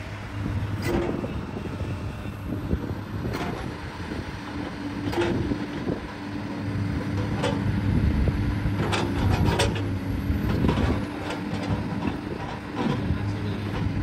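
Komatsu PC210-8 excavator's six-cylinder diesel engine running steadily under hydraulic work as the boom and arm move, with sharp knocks every few seconds.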